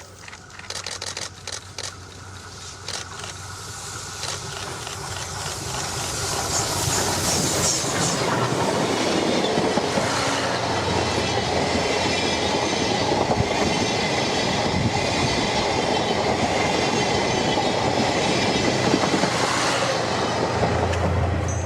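Train of steam locomotive C57 180 and seven 12-series coaches passing close by. Separate wheel clicks over rail joints at first, then the sound builds over about eight seconds into a steady, loud rolling rumble as the train goes past.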